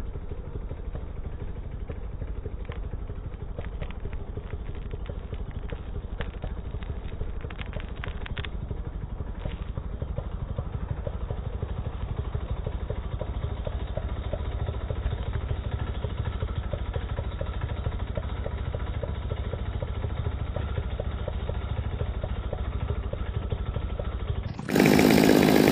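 Chainsaw running, slowed down by slow-motion playback into a deep, rapidly pulsing low drone. About a second before the end it jumps back to normal speed: a louder, higher-pitched chainsaw.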